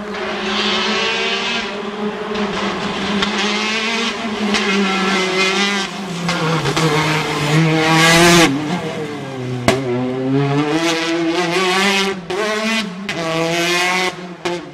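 Rally car engine at full throttle through a stage, its pitch climbing and dropping repeatedly as it shifts gears and lifts for corners, loudest as it passes about eight seconds in. A sharp crack sounds partway through.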